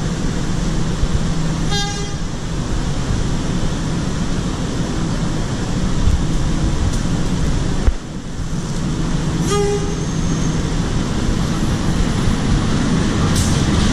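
Diesel locomotive approaching, sounding two short horn blasts about eight seconds apart over a steady low engine rumble that grows louder toward the end.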